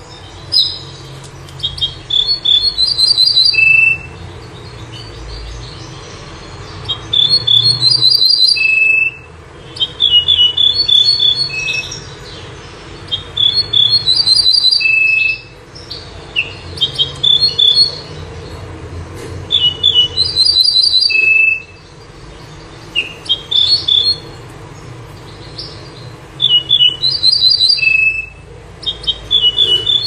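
A songbird's recorded song: one fast, varied phrase of high chirping notes, each time ending on a lower held note, repeated about five times with short pauses between. A steady low hum runs underneath.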